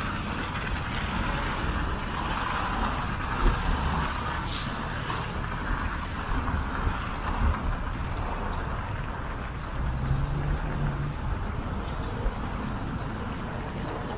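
Steady road traffic: cars driving past on the road alongside, engine and tyre noise with a low rumble, and a brief hiss about four and a half seconds in.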